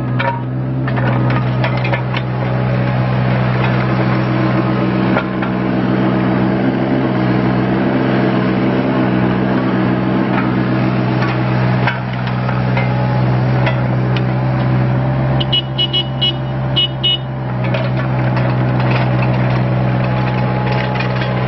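A 2012 John Deere 17D mini excavator's diesel engine runs steadily while the machine travels on its tracks, with clicks and knocks from the running gear. A quick run of short, high squeaks comes about three-quarters of the way through.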